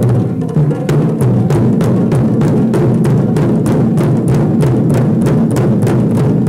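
Taiko drumming: deep drums struck in a fast, steady run of sharp strokes, several a second.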